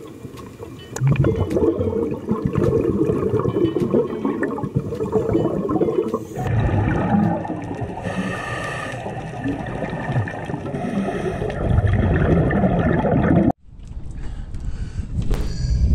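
Scuba regulator breathing underwater: exhaled air bubbling out in gurgling rushes with breaths between. It cuts off suddenly near the end, giving way to a low rumble of wind and boat noise at the surface.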